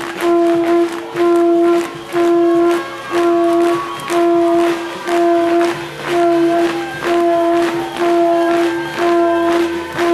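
A brass band playing: the same held horn note sounds over and over, about once a second, over steady drum hits.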